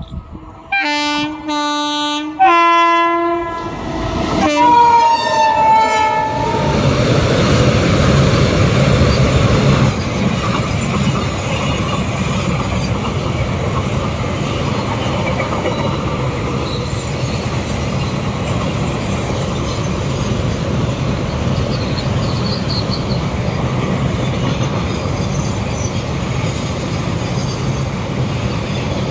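WAG-9 electric locomotive's horn sounding two blasts and then a third note that drops in pitch. It is followed by the steady rumble and clickety-clack of a long container train's wagons rolling past.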